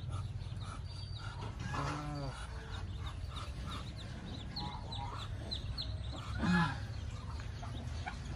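Farmyard fowl: a brood of young birds peeping with many short, high, falling peeps, and adult birds giving two low calls, the louder one about six and a half seconds in.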